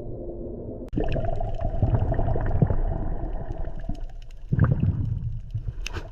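Water sound effects: gurgling and splashing with scattered small clicks over a low rumble. The sound changes abruptly about a second in, becoming louder, and swells again near the end.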